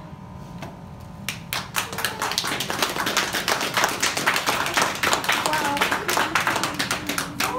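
A small group of people clapping, starting about a second in and building into a dense, steady round of applause.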